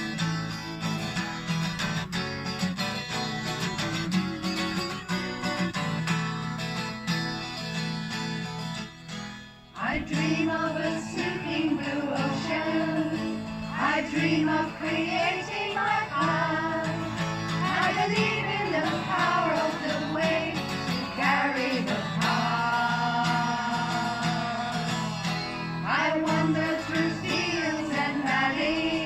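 A song with acoustic guitar strumming; a voice starts singing about ten seconds in, over the guitar, in a country or folk style.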